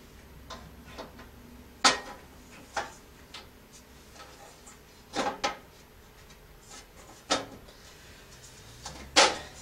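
Metal camp-stove parts being handled: a griddle plate set and shifted on the stove's frame, giving about half a dozen sharp, separate clanks and taps with light rubbing between them.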